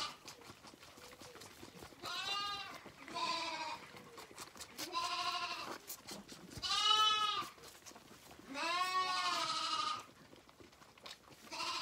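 Zwartbles lambs bleating at bottle-feeding time: five separate calls in about eight seconds, each rising and falling a little in pitch, the last and longest lasting about a second and a half.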